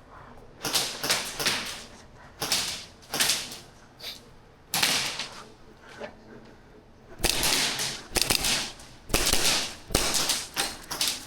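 Airsoft guns firing in short rapid bursts of clicking shots, several volleys one after another, the longest and loudest between about seven and nine seconds in.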